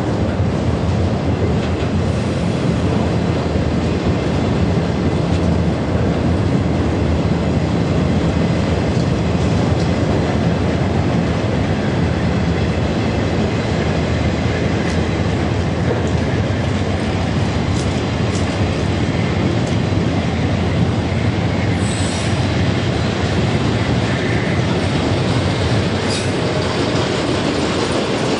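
A train rolling steadily past at close range, its cars and wheels clattering on the track, with brief high wheel squeals about 22 and 26 seconds in.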